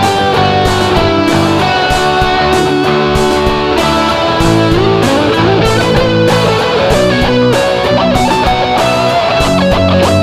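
Instrumental break of a guitar-band worship song: strummed guitars and bass under steady drum hits, with a sustained lead melody line that slides between notes.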